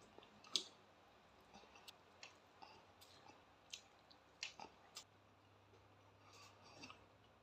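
Faint chewing of food, with scattered soft clicks and small crunches, a dozen or so spread unevenly.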